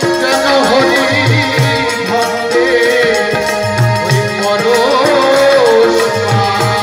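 Live Bengali devotional folk song over a PA: a man's singing voice, wavering and ornamented, over held accompanying notes. A barrel drum repeats a short low phrase about every two and a half seconds, with a high jingle keeping time.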